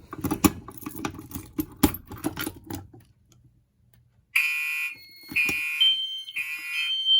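Clicks and clacks of a fire alarm pull station being pulled and keyed. About four seconds in, fire alarm horns start sounding in three short blasts, the code 3 temporal pattern. Near the end a second, higher tone from another appliance joins them.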